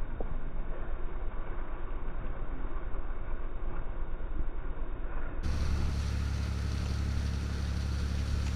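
Wind buffeting the microphone over the rush of a boat's wake. A little over five seconds in, the sound changes to the boat's engine droning steadily under the hiss of the wake.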